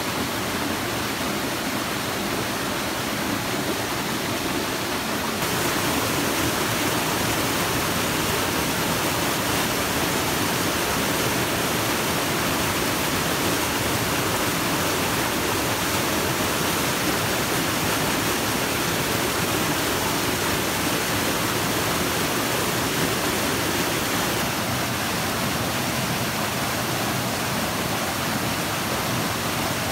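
A small forest stream rushing over rocks in a low cascade: a loud, steady rush of water.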